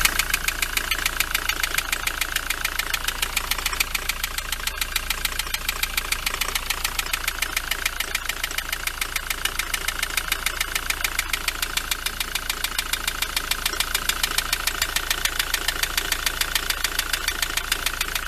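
Ford Transit 2.4 diesel engine idling with a rapid, regular knock. The knock carries on with the serpentine belt removed, so it is not coming from the belt-driven accessories.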